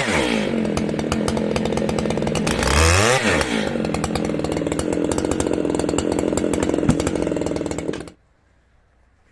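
Big-displacement chainsaw sawing through hard dry beech at full throttle. Its engine note swings up and back down about three seconds in, then holds steady under load. The sound cuts off suddenly about eight seconds in.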